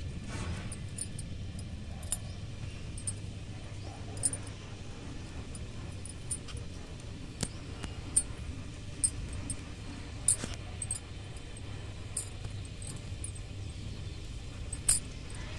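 Close handling noise: scattered light clicks and rustles, irregularly spaced, over a steady low hum.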